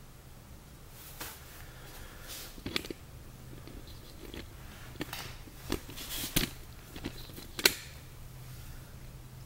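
Handling noise around a steel mower deck: a scatter of light clicks and knocks as the diamond-plate steel chute block is moved, the sharpest click near the end, over a low steady hum.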